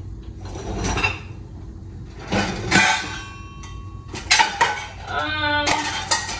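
Dishes, pots and cutlery clattering and clinking as a dishwasher is rummaged through, in a few separate bursts of knocks.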